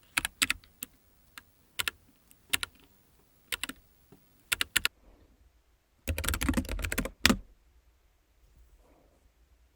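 Keychron K9 Pro low-profile mechanical keyboard being typed on: scattered single keystrokes and pairs over the first five seconds, then a quick flurry of keys for about a second, after which the typing stops.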